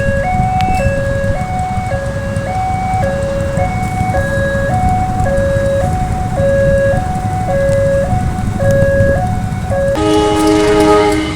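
Railway level-crossing warning alarm sounding: two electronic tones, one low and one higher, alternating about once a second over the rumble of waiting road traffic. Near the end the alarm gives way to a brief horn chord of several tones at once.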